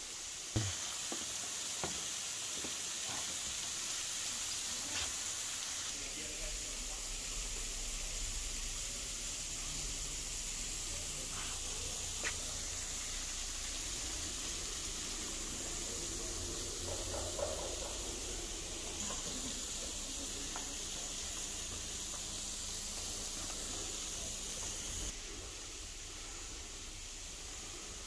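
Steady hiss of a thin waterfall spilling down a rock face. The hiss drops away near the end.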